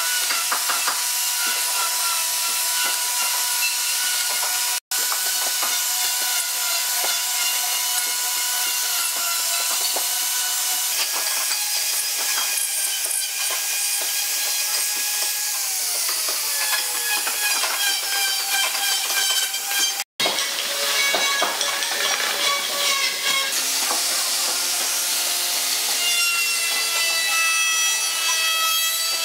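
Electric wood router running at high speed, its bit cutting into a wooden board: a steady high whine over a hissing cut. The whine falls in pitch once about midway, and the sound drops out twice for an instant.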